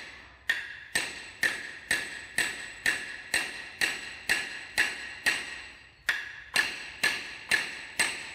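Hammer tapping a wooden dowel into the end of a turned wooden baluster. The blows are steady and even, about two a second, each with a short ringing tail.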